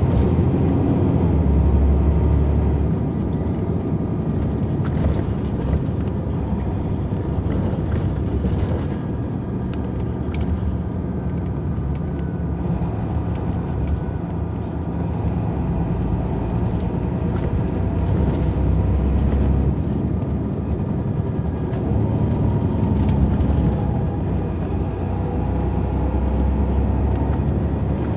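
Detroit Diesel Series 60 engine of an MCI D4000 coach bus running as the bus drives, heard from inside the bus, its low note swelling a few times. Short rattles and clicks come through over it.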